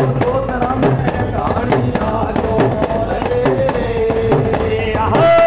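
Men singing a devotional bhajan in long, held phrases. Hand-held clapper percussion struck together keeps a steady clacking beat underneath.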